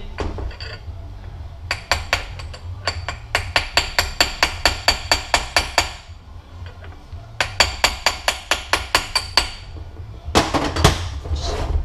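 Hammer tapping a brass punch to drive the center shaft out of a Mazdaspeed 6 transfer case: two runs of quick, even metallic taps, about four a second, each with a short ring, broken by a pause of about a second halfway through.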